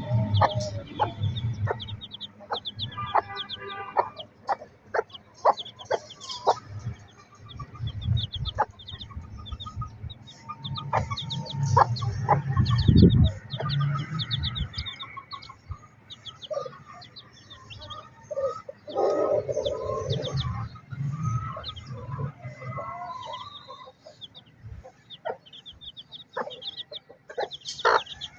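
Chickens: chicks peeping rapidly and constantly in short high notes, with adult clucking. Scattered knocks and a low rumble run underneath, loudest about halfway through.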